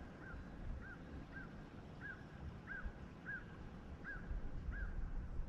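A bird calling over and over, short notes that rise and fall, about one every half second to three-quarters of a second, over a low wind rumble.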